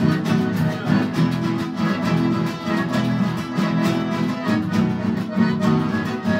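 Two acoustic guitars strumming and an accordion playing a tonada, the folk song form of the Cuyo region, with the accordion's held chords over a steady strummed rhythm.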